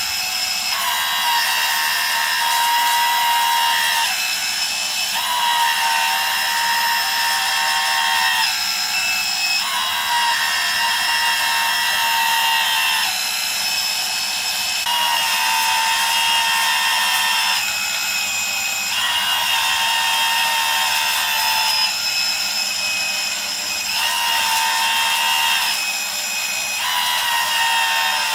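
Hydraulic oil pump of a 1/14 scale RC road roller model running with a steady high whine, its tone changing every few seconds.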